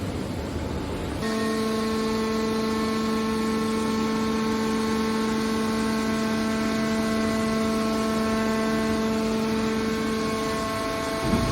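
Hydraulic metal press baler running: a noisy mechanical rumble, joined about a second in by a steady pitched hum that holds almost to the end.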